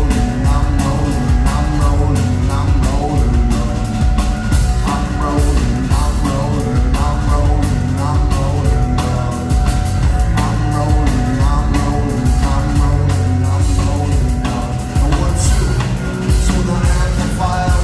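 Live rock band playing, with a steady drum-kit beat and heavy bass.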